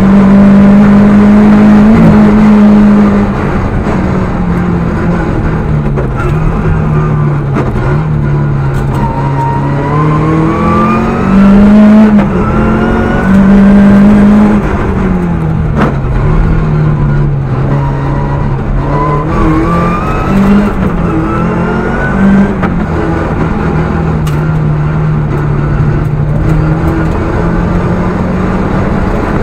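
Rally car engine heard from inside the cockpit, driven hard: the note climbs repeatedly through the revs and drops back as the car shifts and brakes. It is loudest at the start and again about twelve seconds in.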